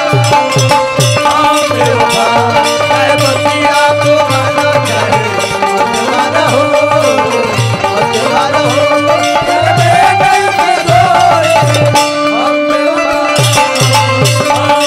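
Instrumental Bhojpuri folk music: a steady hand-drum beat under a wavering, sustained melody line, played as an interlude between the singer's verses.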